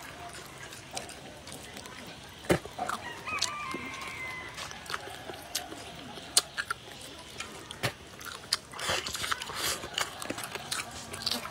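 Close-up eating: chewing with sharp clicks and taps of chopsticks. A rooster crows in the background about three seconds in, one stepped call lasting just over a second.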